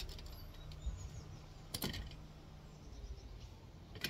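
Small plastic clicks and taps as a Hornby Class 47 model locomotive is handled and set down on paper towel: a short cluster of clicks about two seconds in and another near the end.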